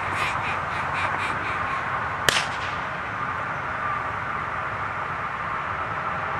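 A duck call blown in a quick run of about eight short quacks, followed a moment later by a single sharp crack, the call-and-shot a helper uses to set up a mark for a retriever. All of it sits over a steady background hiss.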